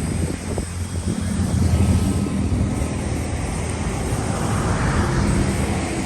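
A motor running steadily with a low hum, under rushing wind noise.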